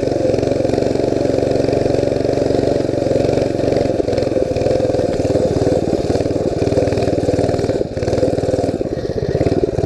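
Mini bike's small engine running steadily while being ridden through snow, with a brief dip in loudness about eight seconds in.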